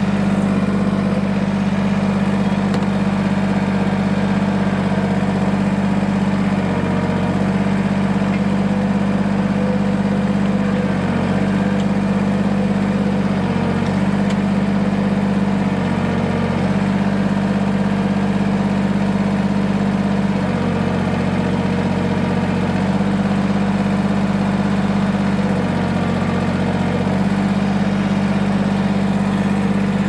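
Kubota BX23S subcompact tractor's small diesel engine running steadily while its loader and grapple lift a heavy log. Its note shifts and strains for a second or two at a time, several times, as the hydraulics take the weight.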